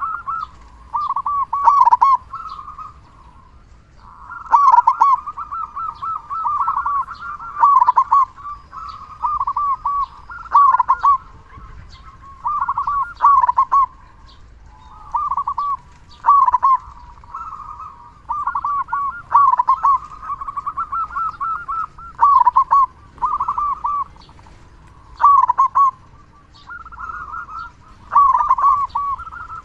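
Local zebra dove (perkutut) cooing loudly, over and over. Each phrase is a quick run of bubbling coo notes lasting about a second, and a new phrase comes every one to three seconds.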